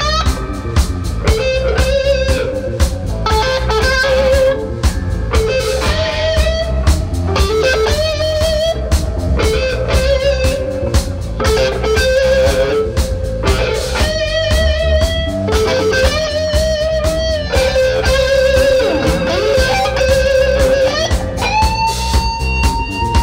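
Live blues band: an electric guitar plays a lead line of bent notes with vibrato over bass guitar and drums. Near the end it slides up into one long held note.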